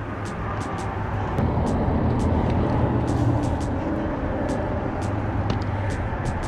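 Steady low rumble of road traffic, swelling as vehicles pass between about a second and a half and four seconds in, with faint scattered high ticks.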